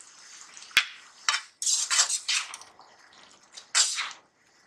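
Perforated metal slotted spoon stirring wet spinach and potatoes in a metal kadhai: a sharp knock of metal on metal about a second in, then several short scraping strokes against the pan.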